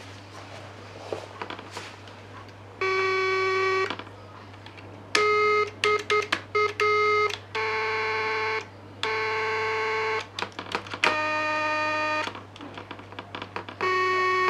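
A home-built electronic tone generator keyed from a keyboard switch array, sounding buzzy single notes at a few different pitches. There is one held note, then a quick run of short stabs, then longer notes, one of them higher. Small clicks fall between the notes, and a steady low electrical hum runs underneath.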